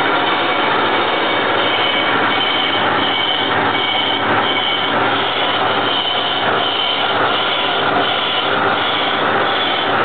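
Soviet 1K62 lathe turning a cast-iron car brake wheel with a carbide insert, at 100 RPM and a heavy feed. Steady cutting and gearbox noise runs throughout, with a high squeal that pulses about one and a half times a second.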